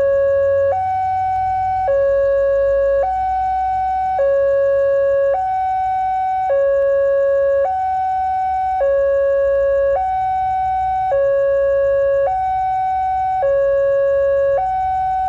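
Electronic two-tone warning alarm alternating evenly between a low and a high pitch, each note held a little over a second, over a faint low rumble.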